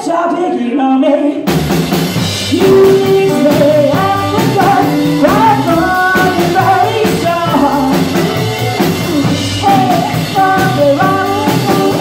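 Live rock and roll band: a woman singing lead over upright bass, hollow-body electric guitar and drum kit. The bass and drums drop out under the voice at the start and the full band comes back in about a second and a half in.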